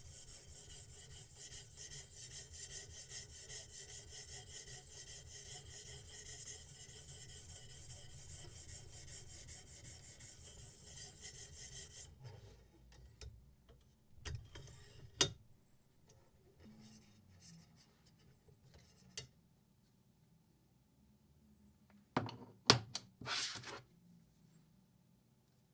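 A sharpening stone scraping along a steel knife blade in quick, even strokes. It stops suddenly after about twelve seconds, then come scattered clicks and knocks of handling, with a sharp cluster near the end.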